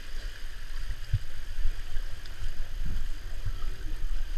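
Surf boat being walked through shallow sea water by its wading crew: a low, steady wash of water and wind noise, with a dull knock about a second in and another about three seconds in.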